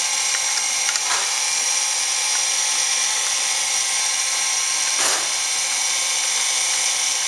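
Hybco Model 1900 tool and cutter grinder running, a steady high-pitched motor whine, with a brief rush of noise about five seconds in.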